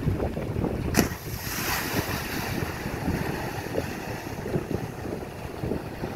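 Wind buffeting the microphone in gusts, over the wash of small waves at the water's edge. A sharp click about a second in.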